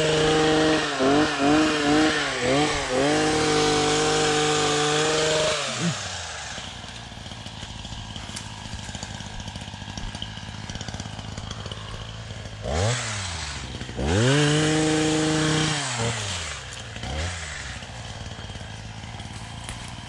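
Gas pole saw engine revving while it cuts branches. It is held at high speed for about five seconds, then drops back to idle, and is revved up and let down again twice more near the end.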